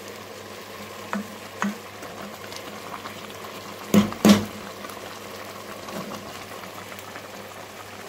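Rice simmering in jaggery syrup in a pot over high heat, giving a steady bubbling hiss with a few light clicks. About four seconds in come two sharp knocks, close together.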